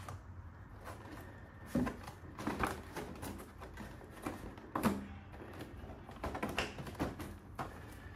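Clear plastic blister tray of a boxed action figure being gripped and worked loose from its packaging: scattered clicks and crinkles of plastic, with the sharpest knocks about two and five seconds in.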